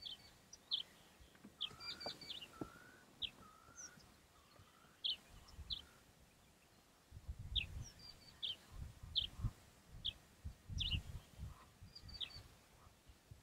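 Wild birds chirping: short high chirps scattered throughout, with a few short rising whistled notes in the first few seconds. Low rumbles come in over the second half.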